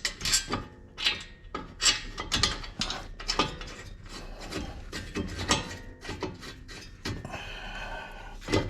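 Irregular metallic clicks and clinks as brake caliper bracket bolts are lined up and threaded in by hand, with a short rasping stretch near the end.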